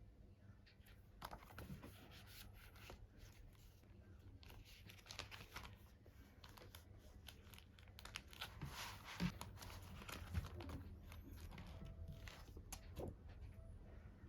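Faint crinkling and rustling of packaging or sleeves being handled, with scattered small clicks, busiest in the second half.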